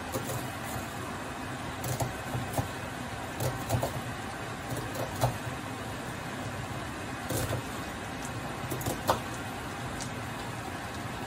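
Diced potatoes frying in plenty of olive oil in a non-stick pan, a steady sizzling hiss, with irregular sharp knocks and taps of a kitchen knife cutting an onion on a wooden board and scraping through the potatoes in the pan.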